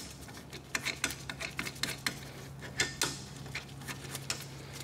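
Irregular small metallic clicks and taps as the front brake caliper's bolts are started by hand and the caliper shifts on its bracket, over a steady low hum.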